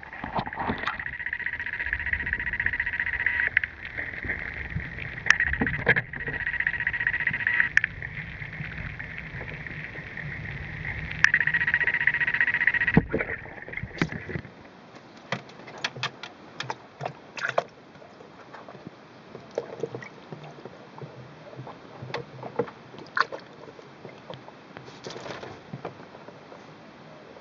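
A cat pawing at the water in a minnow bucket, making sloshing and splashing sounds. A steady noise runs for about the first half, then stops; after that there are only scattered small splashes and taps against the bucket.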